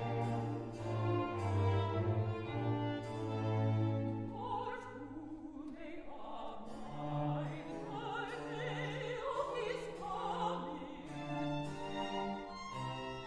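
A chamber string orchestra plays slow held chords over a bass line, then a mezzo-soprano enters about a third of the way in, singing with a wide vibrato over the string accompaniment.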